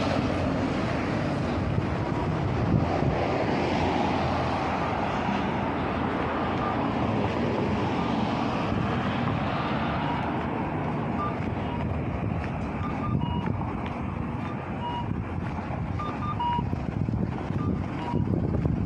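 City street traffic: cars passing close by with engine and tyre noise, easing off about halfway through. In the second half, short high electronic beeps come at irregular intervals.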